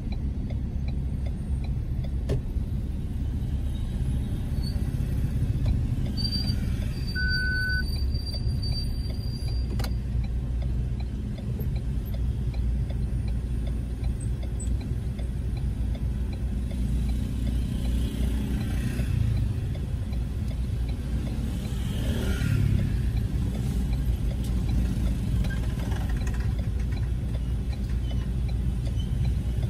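Steady low engine and road rumble of a car in slow city traffic, heard from inside the car, with other traffic rising somewhat in the second half. A short high beep sounds about seven seconds in.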